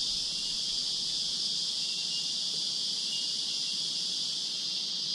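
Steady insect chorus, most likely cicadas, making a continuous high-pitched drone that holds level without pause.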